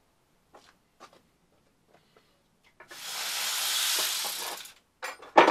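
A hiss of about two seconds that swells and fades, starting about three seconds in, followed near the end by a few sharp metallic clinks with a short ringing.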